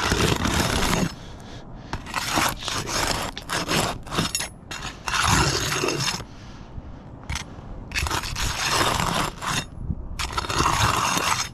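A steel flat bar being worked under roof shingles to pry one loose: a series of repeated scraping strokes, each lasting up to a second or so, with short pauses between them.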